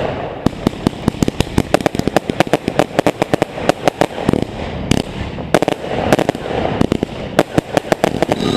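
Fireworks and firecrackers going off in a rapid, uneven string of sharp bangs, up to about ten a second, thinning out for a while in the middle before picking up again.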